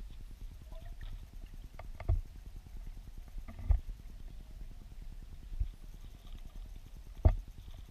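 Water flowing through a river weirpool, heard through a submerged camera: a steady low rumble and crackle, with four sharp knocks, the loudest near the end.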